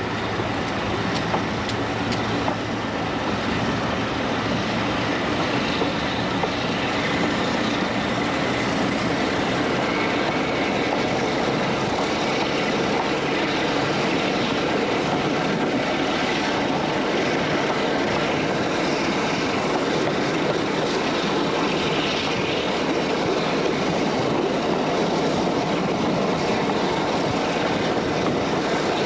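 Preserved Class 50 No. 50015 and Western D1041 diesel locomotives pulling the train away under power, heard from an open carriage window together with the running noise of the coaches. The sound is steady and builds a little over the first few seconds.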